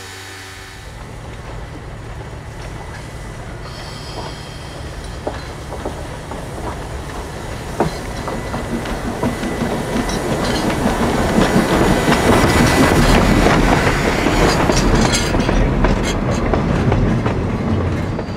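Polson Logging Co. No. 2, a 2-8-2 steam locomotive, approaches and passes close by with a freight train. The wheels clatter and knock over the rail joints with a thin wheel squeal, and the sound grows steadily to its loudest as the engine and tender go by.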